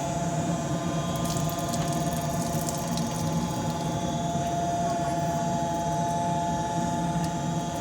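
York Affinity 9C gas furnace running with its cabinet open: a steady hum under a steady two-note whine, with a few faint ticks in the first few seconds.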